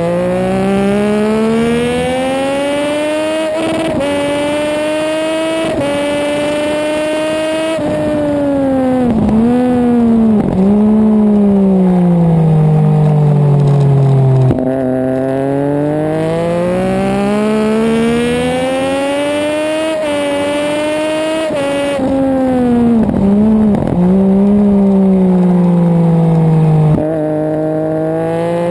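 Sport motorcycle engine at racing speed, rising in pitch through the gears with quick drops at each upshift. It then falls away under braking with sharp rev blips on the downshifts, and pulls hard again out of the corner. The cycle runs twice.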